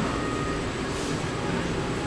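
Steady café background noise: a low, even rumble of room sound with indistinct activity and no clear words.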